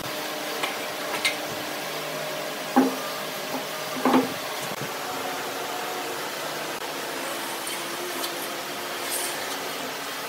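A long metal straightedge being shifted on a wooden slab: two light knocks about three and four seconds in, with faint rubbing and ticks, over a steady background hum.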